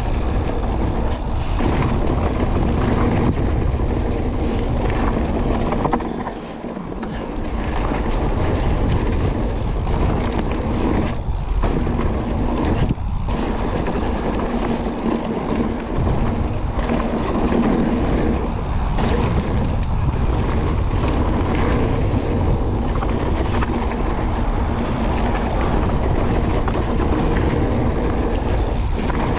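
Mountain bike rolling fast down a dry dirt trail: tyres rumbling over the packed dirt and gravel and the bike rattling over bumps, mixed with wind on the camera microphone. It goes briefly quieter about six seconds in.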